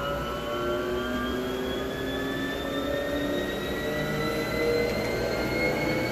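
Freemotion treadmill running: its drive motor whine and belt noise, with tones rising slowly in pitch as it speeds up. No squeak, since the drive belt and pulleys have been cleaned with a steel brush.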